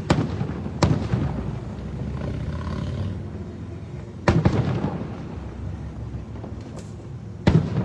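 Aerial fireworks shells bursting: about four sharp bangs, roughly at the start, a second in, about four seconds in and near the end, each trailing off into a rolling, echoing rumble.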